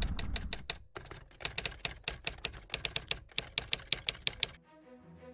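Typewriter keys clacking in quick, uneven strokes as a line of text is typed out, stopping suddenly near the end. The tail of the previous music dies away in the first second, and soft music starts after the typing stops.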